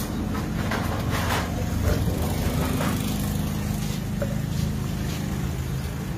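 A running engine idling with a steady low drone, with a few light clicks about a second in and near three seconds.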